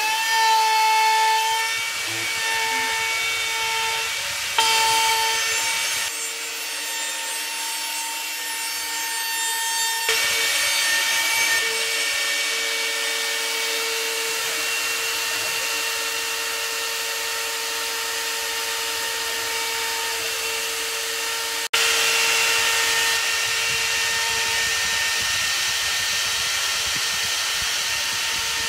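CNC router spindle running with a steady high whine while its end mill cuts plywood, the bit rasping through the wood. The sound breaks off for an instant about two-thirds of the way through, then carries on.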